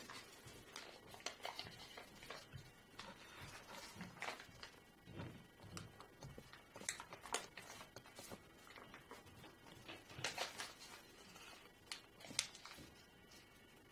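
Faint rustling and crinkling of an origami paper sheet being folded and creased by hand, with irregular small crackles and ticks, the sharpest near the end.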